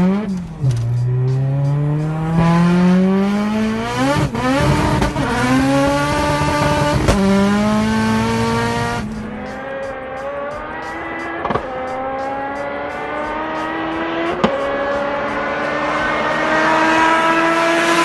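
Turbocharged Honda Civic engine at full throttle, heard from inside the car. Its pitch climbs through each gear and drops at each upshift several times, then climbs slowly and steadily in a high gear through the second half.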